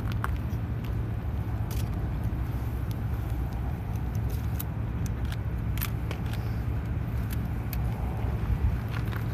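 Steady low outdoor rumble with a continuous low hum and a few faint scattered clicks; no cannon fire.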